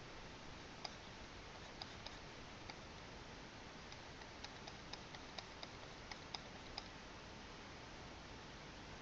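Light, irregular clicks from drawing tools at work, about fifteen, bunched around the middle and stopping near the end, over a steady faint hiss.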